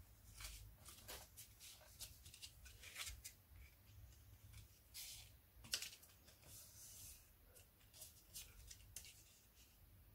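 Faint rustling and scraping of thick black cardstock being folded and pressed flat by hand, in many short strokes, with one sharper crackle just under six seconds in.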